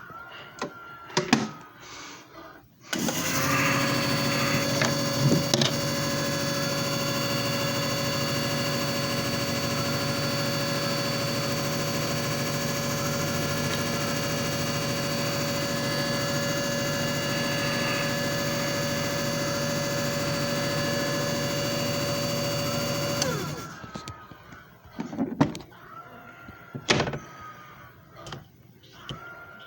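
JFJ Easy Pro disc repair machine running: a steady motor hum with a high whine, starting abruptly a few seconds in and stopping after about twenty seconds. Clicks and knocks come before it starts and after it stops.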